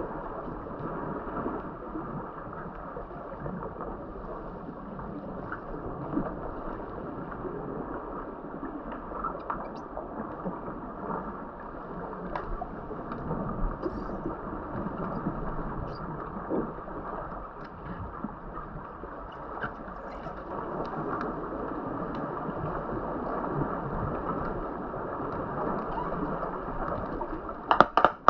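Muffled underwater pool noise picked up by a submerged camera: a steady rush of water movement and bubbles with scattered faint clicks. Near the end a fast run of loud, evenly spaced clicking pulses starts, about four a second.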